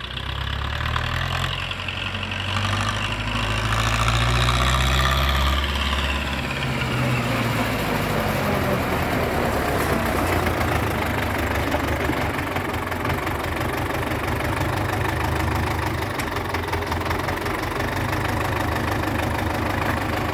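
MTZ tractor's diesel engine running under way. A whine falls in pitch over the first several seconds, then settles into a steady drone. The owner blames the hum the tractor makes when coasting downhill on a loosened nut.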